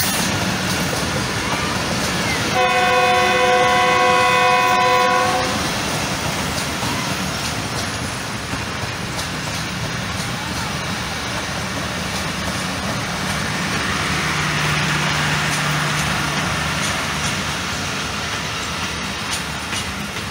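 Passenger coaches and a postal van of a Pakistan Railways express rolling steadily past close by, wheels clattering over the rails. A train horn sounds once for about three seconds near the start.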